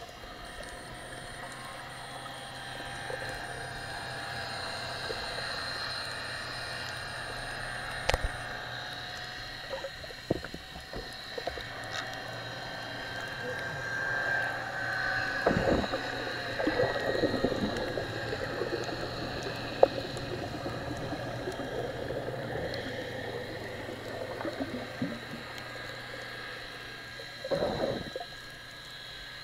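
Underwater sound picked up by a submerged camera during snorkeling: a muffled, steady low hum carried through the water, with a few sharp clicks and bursts of bubbling and gurgling in the second half.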